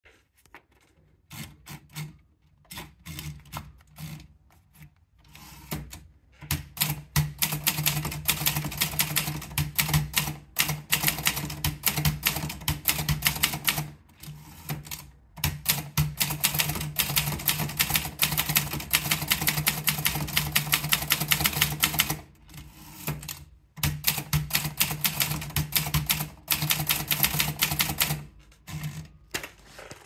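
Gracia De Luxe manual typewriter: a few scattered clicks as the paper is fed in, then about six seconds in, rapid runs of typebars striking, with brief pauses between the runs.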